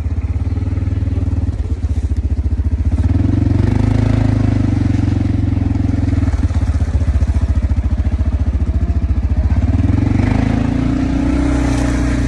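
ATV engine running close by as it is ridden, its pitch rising twice as it speeds up, once about three seconds in and again near the end.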